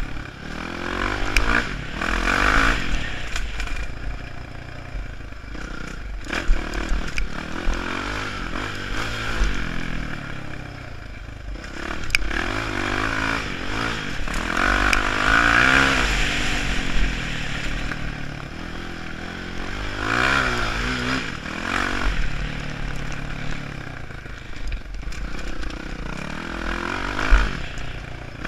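Dirt bike engine revving hard, its pitch climbing and dropping again and again as the rider accelerates and backs off. A few sharp knocks and clatters come from the bike over the rough ground.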